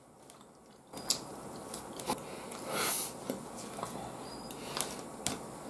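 Wooden chopsticks clicking and tapping against a plate as they break apart a piece of grilled eel: a handful of small separate clicks, with a brief hiss about three seconds in.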